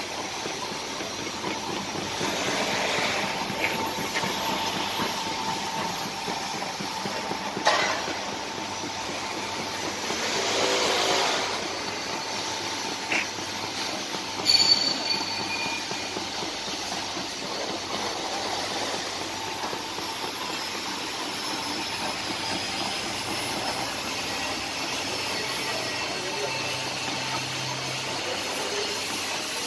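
Mobile inclined belt conveyor with a chevron-cleated rubber belt running empty: a steady mechanical rolling hum with a faint whine, swelling louder briefly about a third of the way in. A few sharp clicks or knocks break through in the middle.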